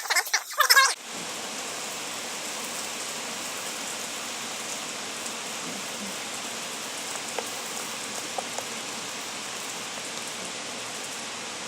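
A brief wavering voice-like sound in the first second, then a steady even hiss, like rain or running water, with a few faint ticks.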